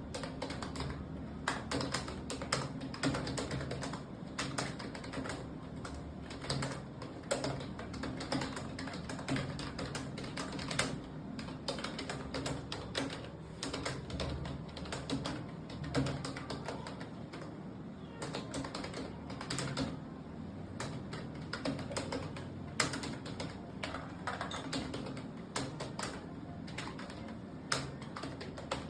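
Computer keyboard being typed on in a steady, unbroken stream of irregular keystrokes, as in a timed typing test.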